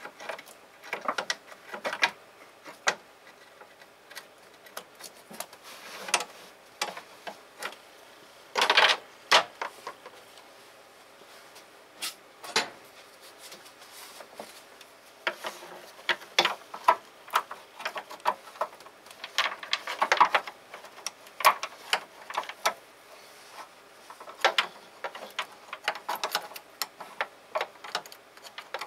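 Hand tools working on engine parts: scattered clicks, clinks and knocks of metal, some in quick runs, with louder clusters about a third of the way in and again past the middle.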